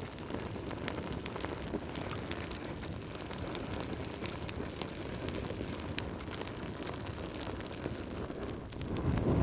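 Wood fire crackling in a fireplace: irregular sharp pops and snaps over a steady low rush of flames, with a louder surge of the flames near the end.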